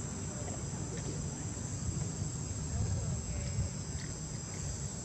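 Insects droning steadily in a high, unbroken buzz, over a low rumble.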